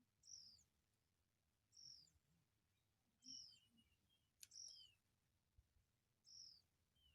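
Faint bird calls: a short, high, falling note repeated five times, about every one and a half seconds, with a few softer, lower chirps in the middle. A single sharp click comes about four and a half seconds in.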